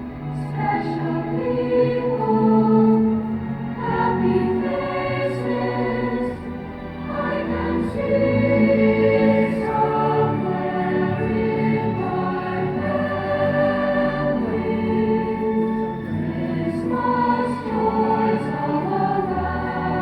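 Choral music: a choir singing held notes that shift in pitch.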